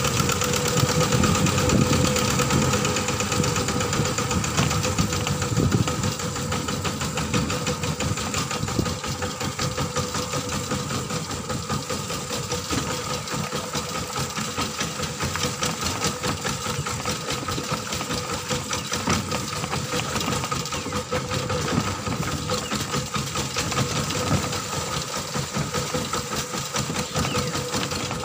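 Kubota ZT140 single-cylinder diesel engine on a two-wheel walking tractor, running steadily under way with a rapid, even knocking beat.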